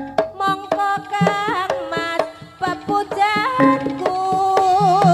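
Live jaranan music: quick hand-drum strokes under a wavering melody line, with one long, quivering held note near the end.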